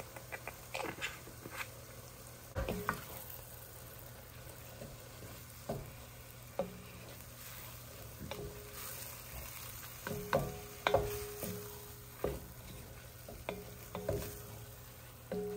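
Wooden spatula stirring browned ground meat and vegetables in an enameled cast-iron pot, with irregular scrapes and knocks against the pot, some with a short ring, over the sizzle of frying. The knocks are loudest about two-thirds of the way through.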